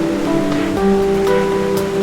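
Calm relaxation music of held notes that change pitch every half second or so, over the steady wash of ocean waves.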